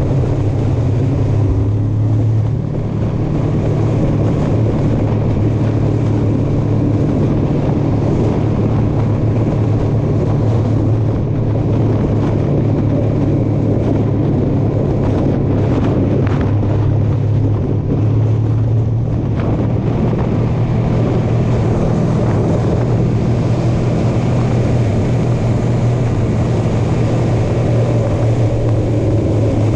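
Honda VFR800 motorcycle's V4 engine running steadily at cruising speed, its note shifting slightly now and then, with wind rushing over the microphone.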